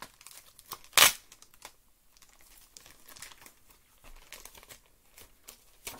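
Paper and cardboard packaging rustling and crinkling as a taped-in paper certificate is worked free of a doll box, with one loud, sharp tearing sound about a second in.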